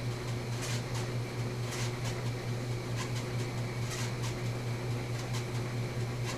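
A steady low machine hum, with faint, irregular ticks scattered over it.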